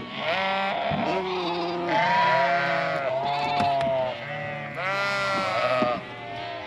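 A flock of ewes and lambs bleating loudly, many calls overlapping one after another, as the lambs are separated from their mothers at weaning.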